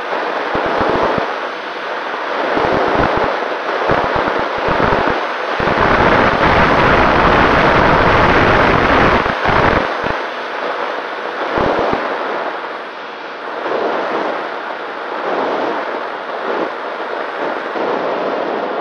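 Wind rushing over the onboard camera's microphone of a Nano Talon FPV plane in flight, with repeated low buffeting gusts that are heaviest in the middle and ease off near the end. A faint steady tone from the electric motor and propeller runs underneath.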